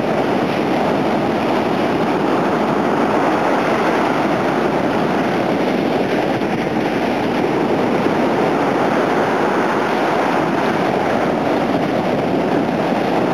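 Steady roar of waves breaking and surf washing up the beach.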